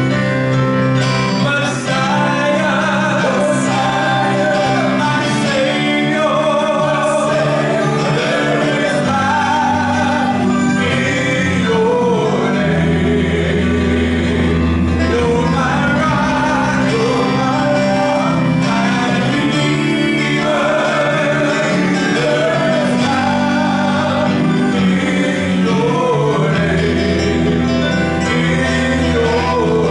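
Live band playing a Christian song: men's voices singing over electric bass guitar, keyboard and electric guitar, with deep bass notes coming in and out.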